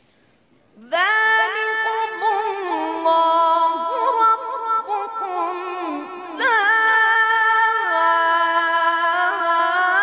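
A boy's solo voice chanting unaccompanied in the melodic style of Quran recitation, with long held high notes and quick ornamental turns. It starts about a second in, pauses briefly for breath near six seconds, and comes back in with a rising swoop.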